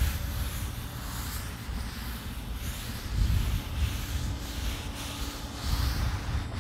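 A wad of paper towels held in tongs wiped back and forth across the hot, oiled steel top of a Char-Griller Flat Iron griddle, a soft rubbing hiss, as a coat of seasoning oil goes on. An irregular low rumble runs under it.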